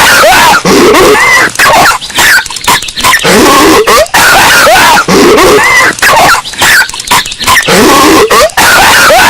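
Patrick Star's cartoon coughing fit, looped and amplified into heavy clipping distortion: harsh coughs and wheezy rising squeals that come over and over with brief gaps between them.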